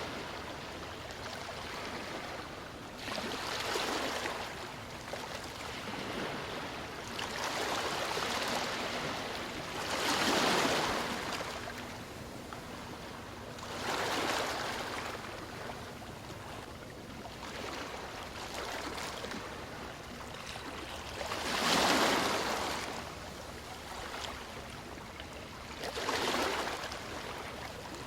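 Ocean waves breaking and washing up a sandy beach: a steady hiss of surf that swells with each breaking wave every few seconds and falls back between them, the loudest surges about ten seconds in and again near twenty-two seconds.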